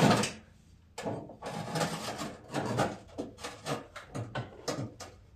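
Irregular metallic clicks, scrapes and clunks that start about a second in, as a mower deck drive belt is worked by hand onto the engine pulley of a zero-turn mower.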